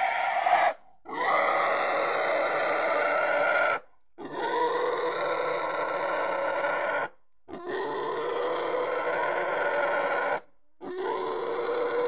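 Domestic pig squealing in long, loud screams of about three seconds each, broken by short pauses for breath, as it is held down and its throat is stuck with a knife at slaughter.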